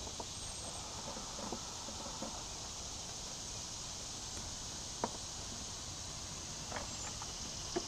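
A few faint, sharp clicks and light handling noises as wiring-harness plugs are handled and pushed together, over a steady hiss. The clearest click comes about five seconds in, with another just before the end.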